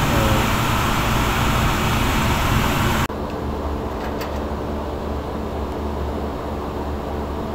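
Steady machinery noise, an even hiss with a hum underneath. About three seconds in it drops suddenly to a quieter low hum, with a couple of faint clicks a second later.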